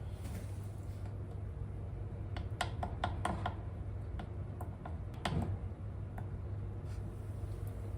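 Low steady hum of a kitchen exhaust fan, with a quick run of light clicks and taps about two and a half seconds in and one louder knock about five seconds in.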